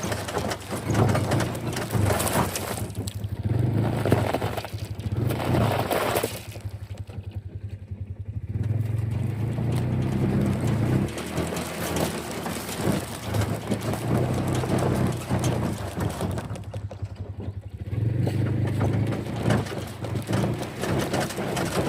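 An engine running steadily, with many small clicks and rattles over it.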